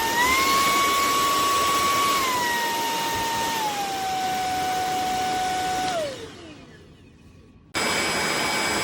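Hoover ONEPWR WindTunnel Emerge cordless stick vacuum running with a steady motor whine. Its pitch steps up briefly, then down in two steps. About six seconds in it is switched off and winds down with a falling whine. It is switched back on near the end and comes straight up to speed.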